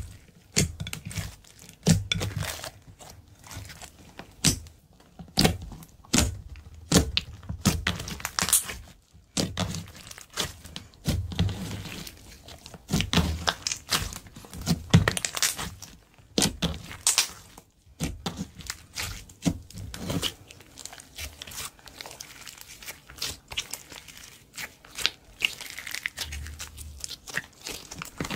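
Hands squishing and kneading a large lump of thick slime, giving irregular sticky pops, crackles and squelches that come fewer and farther apart in the last several seconds.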